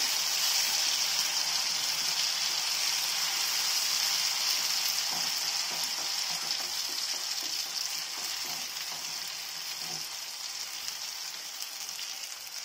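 Mashed ripe jackfruit pulp sizzling in hot ghee in a non-stick frying pan while a wooden spatula stirs it. The steady sizzle slowly grows quieter.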